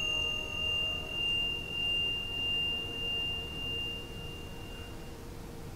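Struck singing bowl ringing out and slowly dying away, its tone wavering in a slow pulse about once a second. The high tone fades out about five seconds in.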